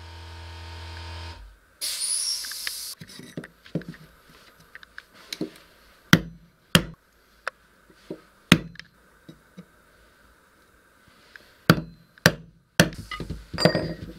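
Hammer striking a chisel to break out scored floor tiles: sharp single knocks a second or two apart, irregular, with a quicker run of taps near the end. A steady hum opens it, then a short harsh rasp at about two seconds.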